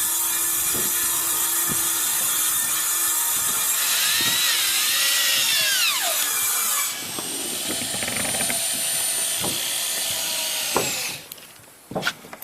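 Electric power saw cutting through plywood decking, running continuously for about eleven seconds with its pitch dipping and recovering midway, then stopping.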